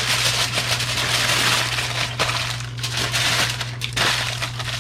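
Aluminium foil being crinkled and folded by hand while wrapping a hobo-dinner foil packet: a continuous dense crackling, over a steady low hum.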